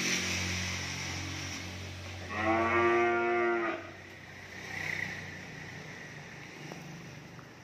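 One of the cattle mooing: a single long, steady moo starting a little over two seconds in and lasting about a second and a half.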